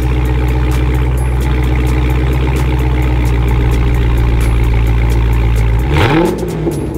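Dodge Charger Scat Pack's 392 Hemi V8 heard through its exhaust, idling steadily. About six seconds in, a quick throttle blip makes the pitch rise and fall once.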